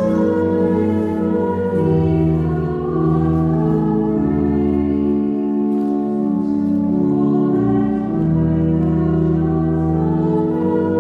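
Church music of slow, sustained chords that change about every two seconds over a deep held bass.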